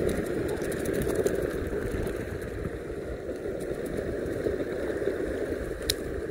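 Meepo Mini 2 electric skateboard on Cloud Wheels rolling steadily along a sandy dirt trail, a continuous rumble of wheels on rough ground, with one sharp click near the end.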